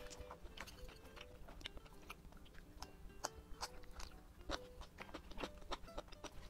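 Close-miked chewing and biting of food, with many short crisp crunches, over faint background music.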